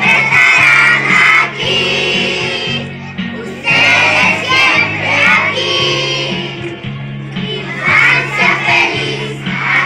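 A group of schoolchildren singing loudly together over musical accompaniment, in phrases of a second or two with short breaks between them.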